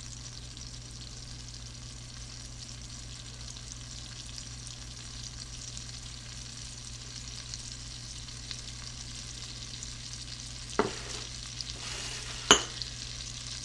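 Butter and oil sizzling steadily in a hot skillet over medium-high heat, a fine even crackle, with a low steady hum beneath. Two sharp knocks come near the end, the second the louder.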